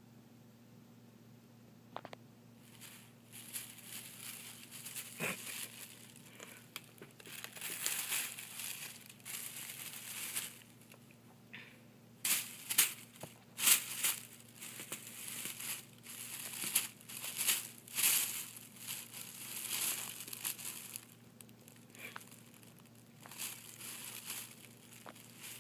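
Thin plastic shopping bag crinkling and rustling in irregular bursts as a cat paws at it, bites it and pushes its head inside. The crinkling starts a couple of seconds in and is loudest around the middle.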